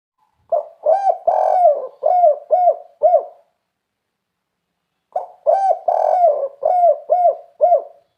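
Spotted dove (tekukur) singing its 'kuk 3' cooing song, given twice about two seconds apart. Each phrase is a run of about six low coos: a short note, a longer drawn coo, then shorter clipped notes.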